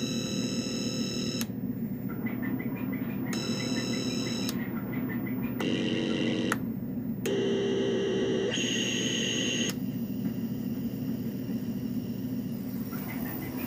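Homemade electronic noise synthesizer droning with a harsh buzz, its tone switching abruptly every second or two as its toggle switches are flipped, with stretches of rapid small blips.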